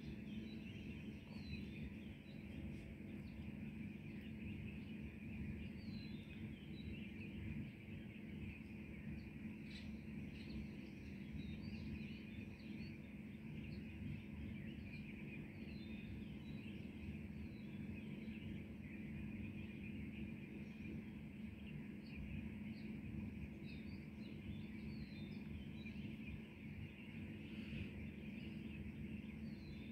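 Early-morning chorus of many small birds chirping and twittering, with short high calls scattered throughout, over a steady low background hum.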